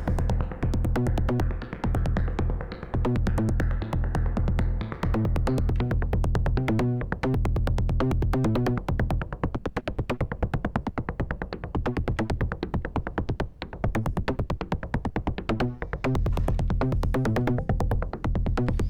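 Make Noise Shared System Eurorack modular synthesizer playing a patched drum-and-bass style electro beat: rapid ticking percussion built from oscillators and noise over a steady low bass. The pattern thins out and stutters briefly about seven seconds in and again around thirteen to fifteen seconds in.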